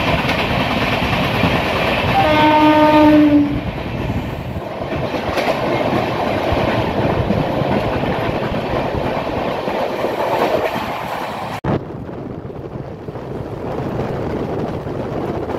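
Express train running at speed, heard from a coach: a steady rail rumble and clatter of wheels on track, passing close alongside a suburban local train at first. A train horn sounds once, briefly, about two seconds in. About twelve seconds in the running noise drops abruptly and goes on quieter.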